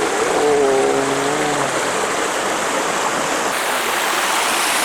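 Small desert waterfall pouring into a creek: steady, loud rushing water. A short pitched hum, about a second and a half long, sounds over it near the start.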